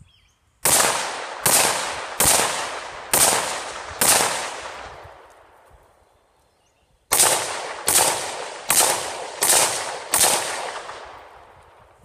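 AR-15 rifle fired in two strings of five shots, about one shot every three-quarters of a second, with a pause of about three seconds between the strings. Each shot trails off in an echo.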